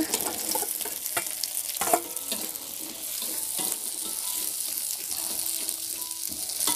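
Sweet corn kernels with sliced chillies, shallots and garlic sizzling in hot oil in a wok, with a metal spatula scraping and knocking against the pan as they are stirred.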